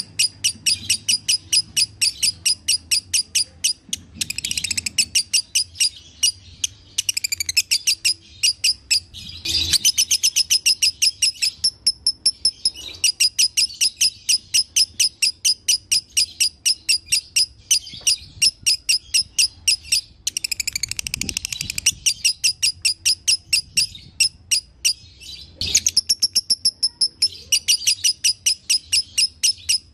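Lovebird singing its 'dobelan' song: long runs of rapid, shrill chirps, about five a second, broken now and then by short pauses.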